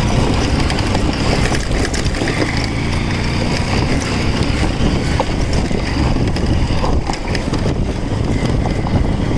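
Motorcycle engine running while riding over a rough gravel and dirt track, with steady wind buffeting the microphone.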